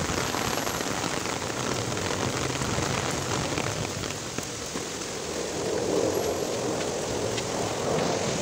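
Heavy rain pouring steadily onto wet pavement.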